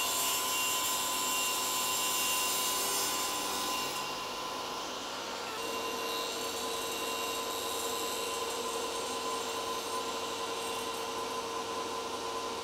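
Benchtop table saw running and cutting a PVC pipe, which is pushed and rolled against the spinning blade to cut it to length. A steady whine runs under the cutting noise.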